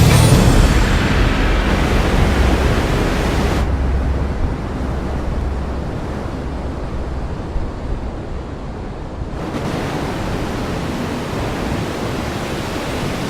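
Steady rushing of strong storm wind, with no distinct events, sounding duller for a few seconds in the middle.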